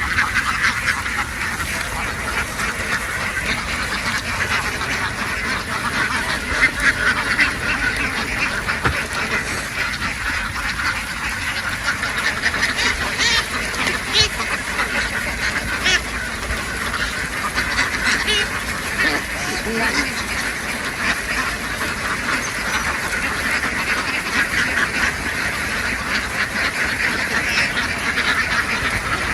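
A large flock of domestic ducks quacking continuously, many birds calling over one another in a steady, dense chatter.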